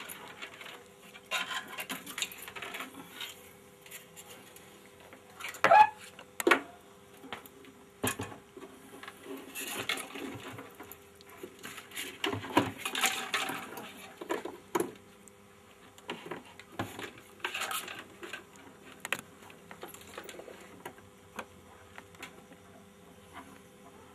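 Scattered clicks, knocks and light metallic rattles of the cables and metal parts of a Victor 16 mm sound film projector being handled and fitted into its case, with a louder knock about six seconds in. A faint steady hum runs underneath.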